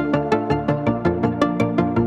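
Background electronic music: a steady run of short synth notes, about four a second.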